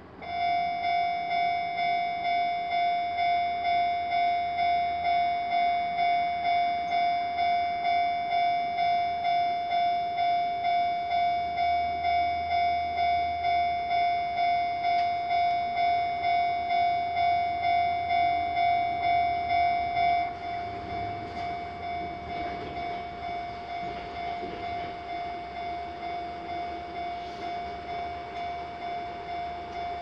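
Japanese railroad crossing alarm bell ringing: a repeated electronic "kan-kan" tone, about two strikes a second, that starts suddenly as the crossing activates. About twenty seconds in it drops to a noticeably lower volume and keeps ringing.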